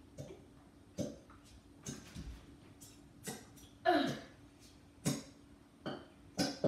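Children's stifled giggles and snorts: short bursts, each falling in pitch, about once a second, the loudest about four seconds in.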